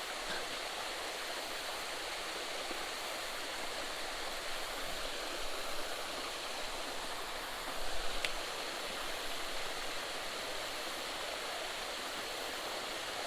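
Small creek spillway waterfall splashing steadily into the pool below, a continuous rushing of falling water. A brief click sounds about eight seconds in.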